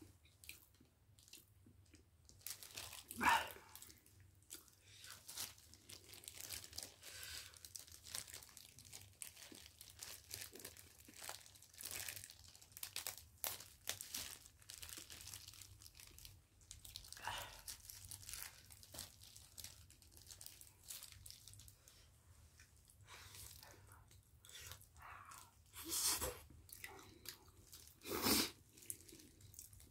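Quiet close-up eating sounds: chewing and biting, with disposable plastic gloves crinkling as kimchi and sweet potato are torn by hand. Soft clicks and rustles come throughout, with a few louder bursts.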